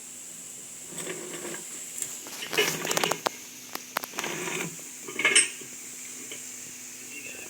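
Steel transfer-case parts clinking and knocking against each other as they are handled and fitted, in several short separate bursts with a few sharp clicks, over a faint steady hum.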